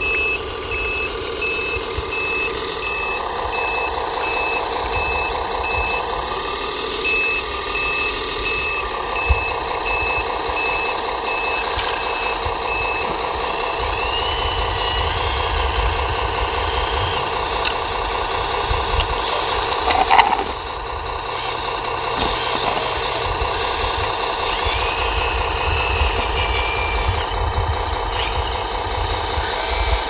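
Radio-controlled model hydraulic excavator and tipper truck working: a steady mechanical whine with engine-like rumble all through. A reversing alarm beeps in an even pattern for roughly the first half, and one sharp knock comes about two-thirds of the way in.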